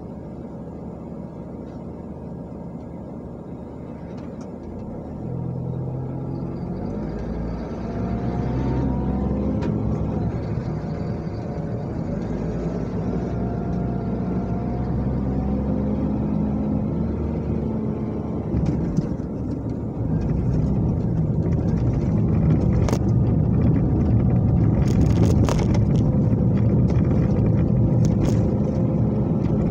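Car engine and road noise heard from inside the cabin as the car pulls away in traffic: the engine note rises in several steps over the first dozen seconds, then settles into a louder steady cruising hum with tyre noise. A few sharp knocks come in the second half.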